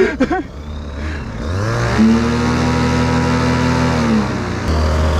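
Paramotor trike's engine and propeller revving up about a second and a half in, holding a steady high rev, then dropping back to idle near the end. The motor is running again after cutting out in flight.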